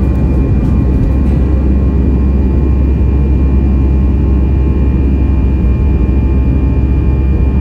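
Cabin noise of an Airbus A320-200 climbing out after takeoff: a loud, steady, deep engine and airflow rumble, with a faint steady whine above it.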